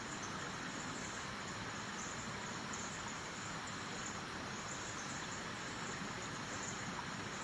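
Steady outdoor ambience: faint, even insect chirring over a soft hiss, with no single event standing out.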